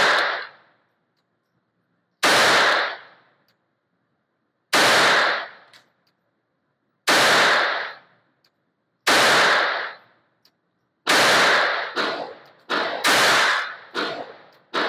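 A Beretta 21A Bobcat .22 LR pocket pistol firing sharp shots that echo briefly in an indoor range. At first the shots come about every two to two and a half seconds, then a quicker string follows near the end.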